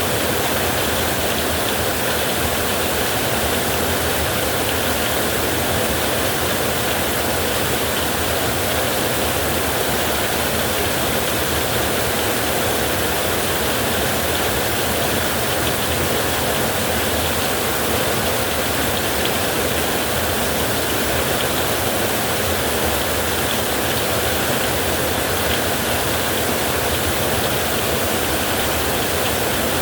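Creek water running, a steady even rushing without pause.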